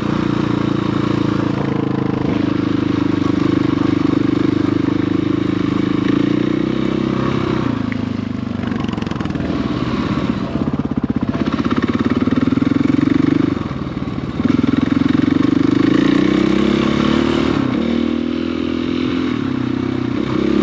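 Dirt bike engine running as it is ridden, its pitch rising and falling with the throttle, with a short drop off the throttle about two-thirds of the way through before it picks up again.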